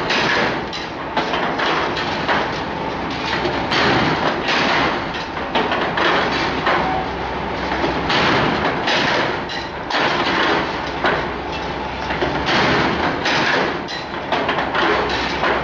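Wire handle making machine for milk cans running, forming wire handles in a repeating cycle: a clatter of metal strokes roughly once a second over a steady low machine hum.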